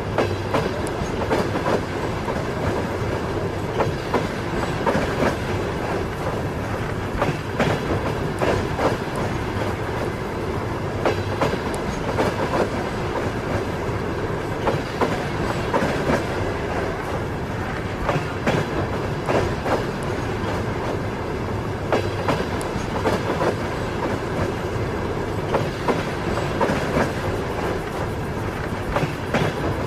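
Train wheels clattering over rail joints as a passenger train runs along, with a steady rumble. Clusters of knocks come every second or two.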